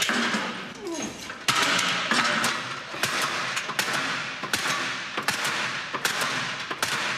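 A man grunting and breathing hard as he strains through pull-ups, with many sharp knocks and clanks throughout.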